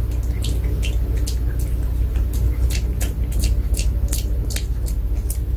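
Pomeranian chewing a probiotic dog chew: irregular crunching clicks, several a second, over a steady low rumble.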